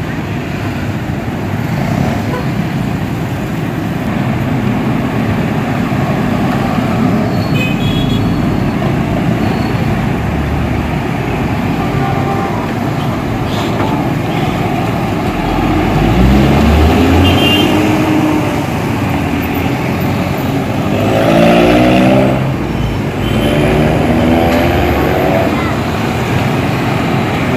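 Road traffic of motor scooters, cars and a truck passing slowly. The engines run steadily, and a few times an engine revs up, rising in pitch as a vehicle pulls away, about halfway through and twice more near the end.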